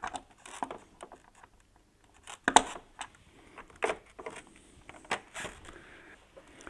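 Scattered plastic clicks and knocks from handling the front panel of a Mitsubishi Electric LN Hero wall-mounted heat pump indoor unit and setting its support hook. The loudest knock comes about two and a half seconds in.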